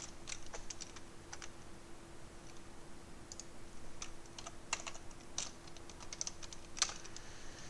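Typing on a computer keyboard: irregular single keystroke clicks and short runs of them, with a faint steady hum beneath.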